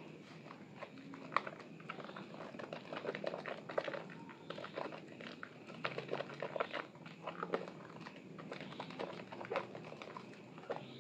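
Wet squelching and crackling of hands squeezing and kneading a soaked bar of Asepso orange soap in thick lather, a dense run of irregular squishes and pops.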